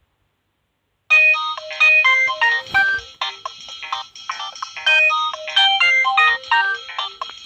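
Nokia 2680 slide mobile phone playing a ringtone, a quick melody of short electronic notes that starts about a second in.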